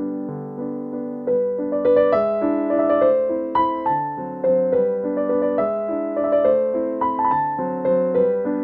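Background piano music: a melody of single notes over chords, each note struck and dying away.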